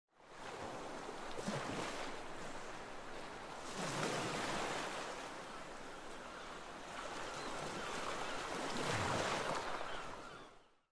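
Sea surf: waves washing in, swelling three times and fading in at the start and out near the end.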